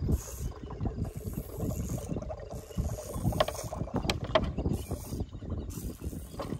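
Young African elephant drinking milk from a large plastic bottle gripped in her trunk: sucking and gulping, with the plastic bottle creaking and clicking, and a few sharper clicks about halfway through.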